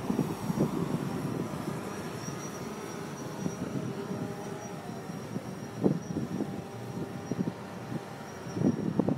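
Roadside vehicle noise: engines running and rumbling, with a few thumps, the loudest about six seconds in and near the end.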